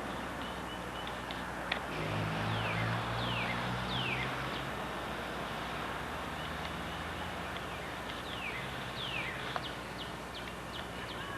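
Small birds chirping: repeated short calls, each sliding down in pitch, over a steady hiss, with a low hum from about two to four seconds in.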